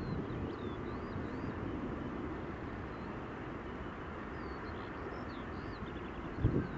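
Airbus A319's CFM56 jet engines giving a steady rumble on final approach. Small birds chirp over it, and a gust of wind hits the microphone near the end.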